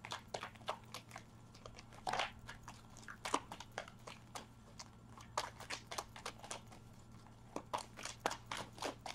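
A deck of tarot cards being shuffled by hand: a run of soft, irregular clicks and slaps as the cards are moved from hand to hand.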